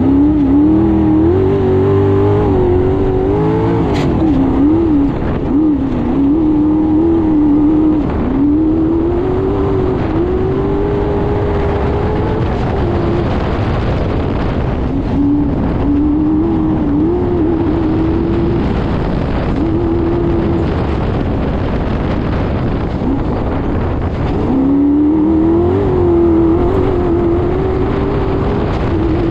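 Off-road race car's engine heard on board at speed, revving up and down as it accelerates and backs off along a dirt track, over a steady rush of noise. The engine note falls away twice, briefly near the middle and for several seconds later on, then climbs again.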